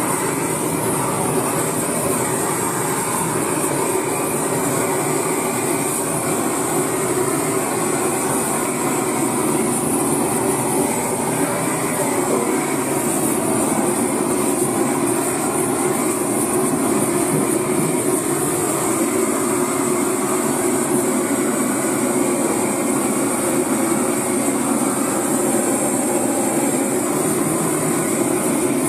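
Hand-held gas blowtorch burning with a steady rushing hiss as its flame is played over hooved animal legs to singe them.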